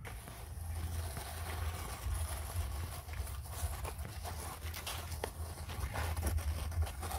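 Plastic dustpan scraping and grinding over sandy dirt as it is pushed along by its long handle, with scattered small clicks of grit.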